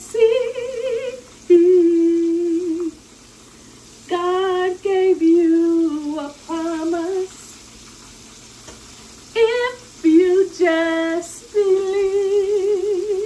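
A woman singing a gospel-style song in long held notes with vibrato, phrase after phrase with short breaks, over the steady sizzle of fish frying in oil in a pan.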